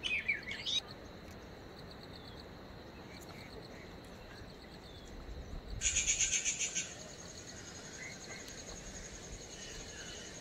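Hillside forest ambience: insects keep up a steady, high, pulsing trill, with a short bird chirp at the start. About six seconds in, a louder rapid pulsing insect buzz sounds for about a second.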